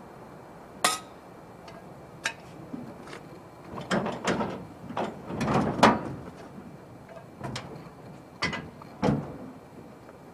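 Scattered knocks and metallic clanks of hands-on work on the truck: a sharp ringing clank about a second in, a busy run of knocks in the middle, and two more thuds near the end.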